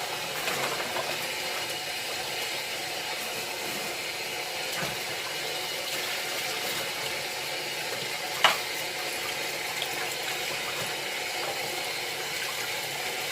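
Tap water running steadily into a kitchen sink, with one sharp clink about eight and a half seconds in.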